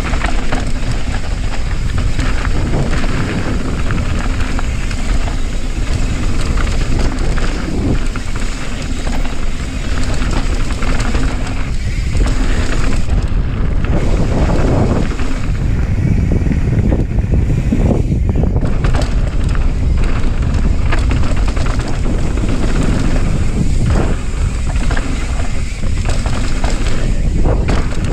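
Mountain bike riding fast down a dirt trail: wind buffeting the camera microphone over the tyres rolling on dirt, with occasional knocks and rattles from the bike over bumps.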